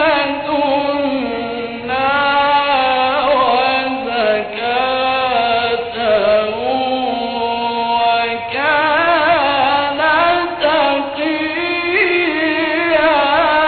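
A male reciter chanting the Quran in the ornate mujawwad style, drawing long melismatic notes with wavering pitch turns, in several phrases separated by short breaths.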